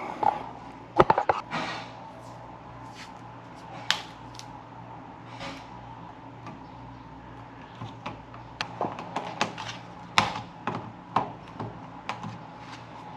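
Small clicks and taps from handling a smart thermostat's base and wiring during installation: a few at first, then a quick run of them in the second half, over a faint steady hum.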